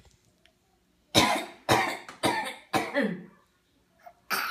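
A run of imitation coughs copying a mother's cough: four short coughs about half a second apart, the last trailing off in a falling voiced sound, and a fifth cough starting near the end.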